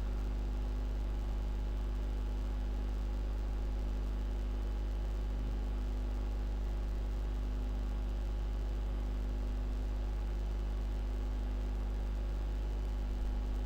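Steady low electrical hum with a ladder of evenly spaced overtones, unchanging throughout: mains hum picked up on the microphone line.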